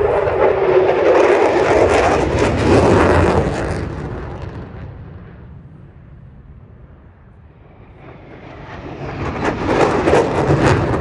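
Aircraft flying low past the crowd. A loud pass with a falling pitch in the first few seconds fades away, then a second pass swells loud near the end.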